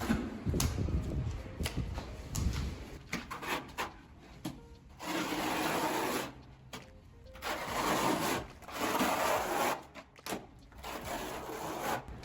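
Repeated scraping strokes of a tool rubbing across a hard surface, each lasting a second or two, with light knocks in between.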